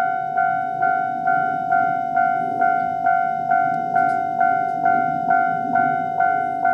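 Japanese railway level-crossing warning bell ringing in its standard tone, a repeated ding about two times a second. Each ding fades before the next, and it signals that a train is approaching the crossing.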